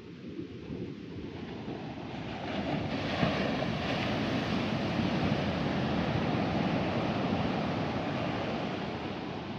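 Sea waves breaking and washing up the shore, the surge swelling over the first few seconds and easing slightly near the end.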